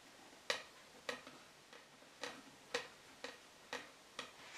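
A run of sharp, light taps, about two a second, some much louder than others.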